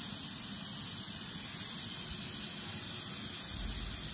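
Steady hiss of a wok of soy sauce and dried chillies cooking over a gas burner on a high flame.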